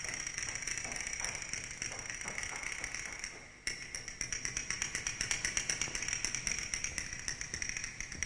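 Ballet pointe shoes tapping quickly on the stage floor as a dancer comes on with small running steps on pointe, starting about halfway through. A steady high whine sounds behind the taps.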